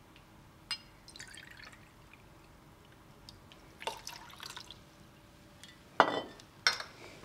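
Vodka poured from a glass bottle into a metal jigger and tipped into a steel mixing tin, with faint trickling and small clinks. About six seconds in, the bottle is set down on the bar with a knock, the loudest sound, followed by a short clink.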